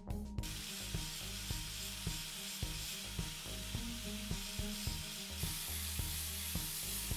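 A few strokes of a hand file on metal, then from about half a second in the steady hiss of an angle grinder's abrasive disc working a steel bar, turning brighter and harsher about five seconds in. Background music with a steady beat plays underneath.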